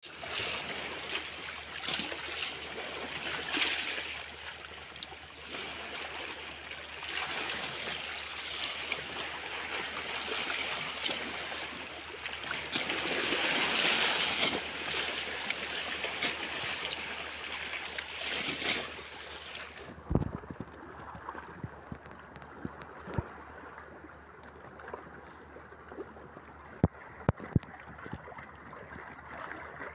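Small waves washing in and draining back over rocks and sand in shallow surf, a rough, rising and falling wash of water that swells loudest a little before halfway. About two-thirds of the way through, the sound turns suddenly duller and quieter, and a few sharp knocks stand out, the loudest near the end.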